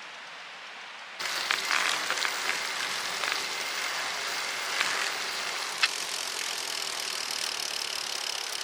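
Azub Ti-fly 20 recumbent trike on the move: tyre and wind noise with scattered clicks from the drivetrain, cutting in suddenly about a second in after a quiet hiss, with a faint steady high whine later on.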